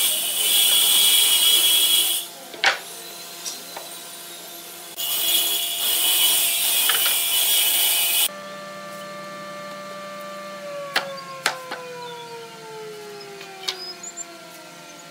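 Shop machinery and wooden knocks. A power tool runs with loud high-pitched noise for about two seconds at the start and again for about three seconds midway. Sharp knocks of hardwood bed parts being set down on the floor follow, and in the second half a machine's hum falls steadily in pitch as it winds down.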